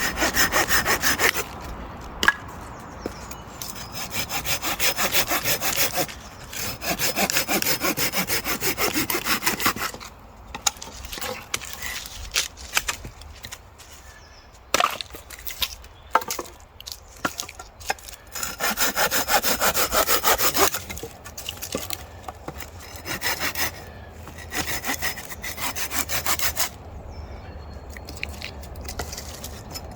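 Hand saw cutting through wood in several bouts of quick back-and-forth strokes with pauses between, and a few sharp cracks and knocks in the quieter stretch midway.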